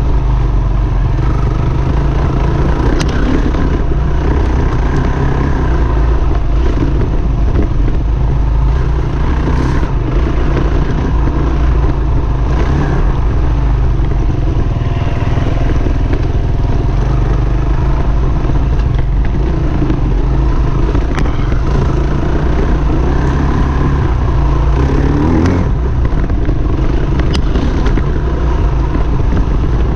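KTM 350 XCF-W dirt bike's single-cylinder four-stroke engine running steadily under way on a dirt trail, with a brief rise in revs about 25 seconds in. Several sharp knocks and clatter from the bike over the trail break through the engine sound.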